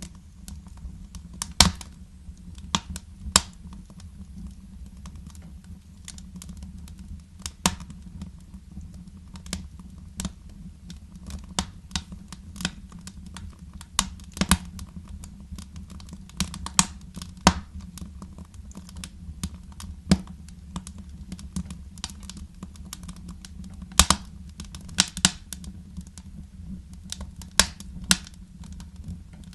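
Wood fire crackling in a fireplace: irregular sharp pops and snaps, a few of them much louder, over a steady low rumble.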